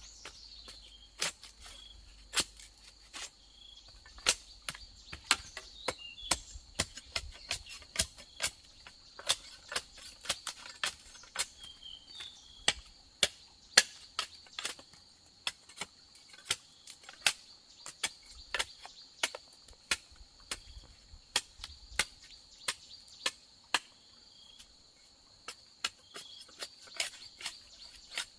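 Repeated sharp tool blows on bamboo, irregular at about one or two a second, over a steady high drone of insects.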